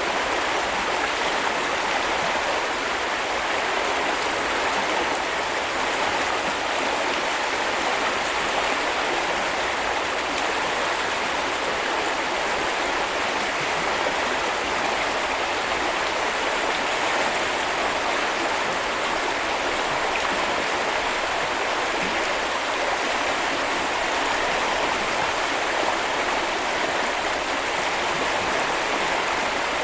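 A small river or brook flowing, a steady rushing and babbling of water with no let-up.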